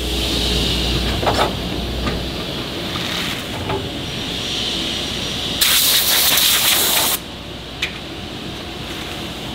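Steady hiss and hum of woodworking machinery in a furniture factory, with a loud burst of hissing lasting about a second and a half a little past halfway. A few light knocks come from particleboard panels being handled.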